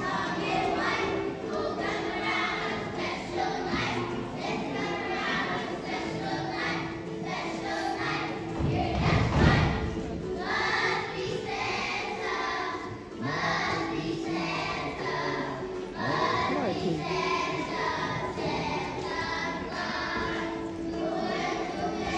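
A group of children singing together in a choir with musical accompaniment. A dull thump about nine seconds in.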